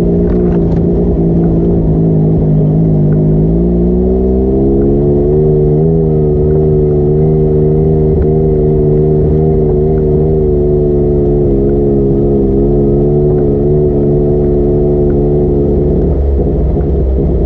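A vehicle engine running under way. Its pitch dips about three seconds in, climbs back up over the next couple of seconds and then holds steady, with a brief unsteady moment near the end.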